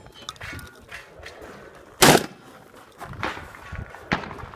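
A single shotgun shot about two seconds in, with a few much lighter knocks and clicks around it.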